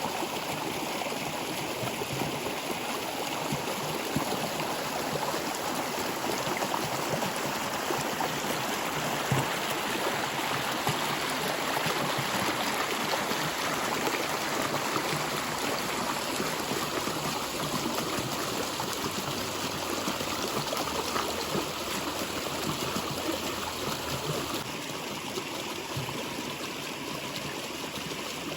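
Stream water flowing and trickling steadily, with small splashes and gurgles throughout.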